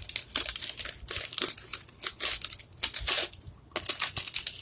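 Clear plastic packaging of craft stencils crinkling and crackling in irregular bursts as hands handle it and try to pull a stencil out.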